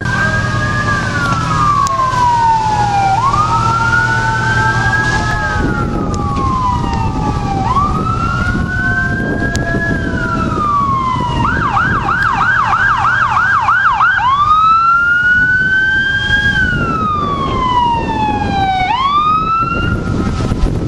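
Electronic siren of a fire department safety officer's pickup truck approaching: a wail rising and falling every four seconds or so, switched to a fast yelp for about three seconds midway, then back to the wail.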